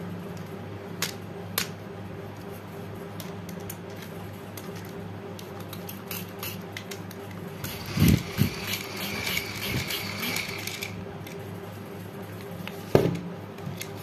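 Small plastic handheld battery mini fan's motor whirring for about three seconds, starting about eight seconds in with a thump. Plastic clicks come before it and a sharp knock near the end, from the toy being handled.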